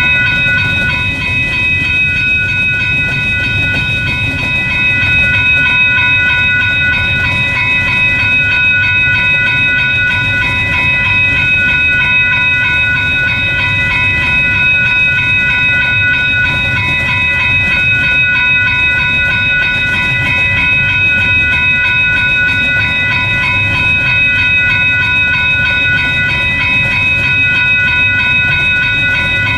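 A train rolling past, its wheels rumbling steadily on the rails, with several steady high ringing tones held over the rumble throughout.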